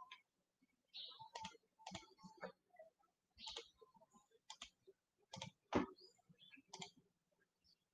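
Faint, irregular clicks and taps of typing on a computer keyboard, with one louder knock about six seconds in.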